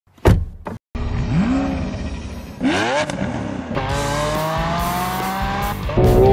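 A car door clunks. About a second in, a Lamborghini Aventador's V12 starts with a rising flare and blips its revs once. Then it pulls away, its engine note climbing steadily. Music comes in near the end.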